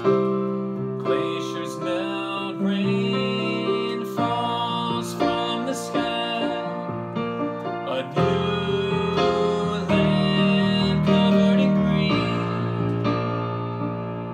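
Electronic keyboard played with a piano sound: sustained chords over low notes that change every few seconds, with a man singing along.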